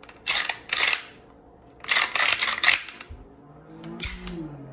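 Steel parts of a Micro Draco AK-pattern pistol sliding and clicking as it is handled during reassembly, just after the recoil spring is seated: two short clacks, a longer rattling slide about two seconds in, and a sharp click near the end.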